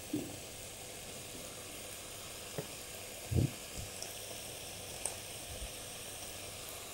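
A faint, steady sizzle of fish cooking in a pot on the stove. Over it come a few light knocks of a chef's knife against a plastic cutting board as a fish fillet is cut, the loudest about halfway through.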